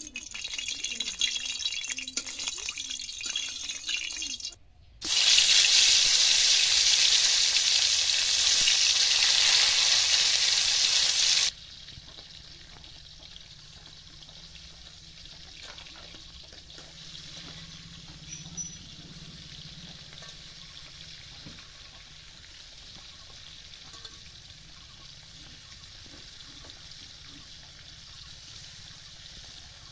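Oil frying in a wok over a wood fire. For the first few seconds a metal spatula clinks and scrapes in the pan. About five seconds in, a loud, even sizzle starts, lasts about six seconds and stops abruptly, leaving a faint steady hiss.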